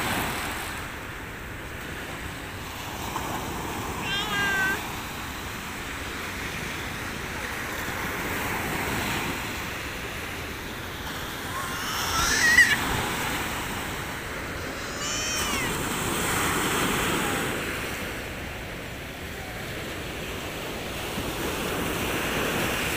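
Sea waves breaking and washing up the shore, swelling and fading every few seconds. A few short, high cries cut through it, about four seconds in and again around twelve and fifteen seconds, the middle one the loudest.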